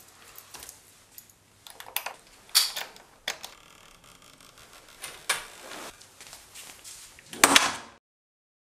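A door being handled in a quiet room: a handful of sharp clicks and knocks spread a second or so apart. The loudest comes near the end, and then the sound cuts to silence.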